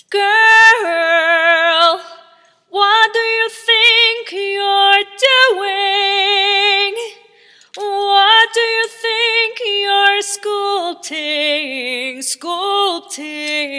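A woman singing a cappella, holding long notes with vibrato in phrases broken by two short pauses, about two and seven seconds in; near the end she sings the word "sculpting".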